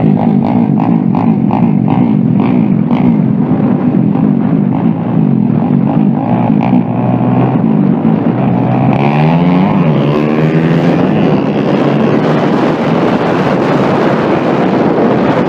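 Motorbike engines running loudly and without a break. Around nine to eleven seconds in, engine notes climb and fall in pitch as bikes rev or pass.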